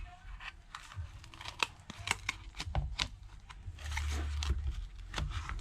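Back cover of a Samsung Galaxy A20s being pried off with a thin plastic pick, the warmed adhesive crackling and tearing in irregular sharp ticks as it lets go. A low hum comes in for about a second near the end.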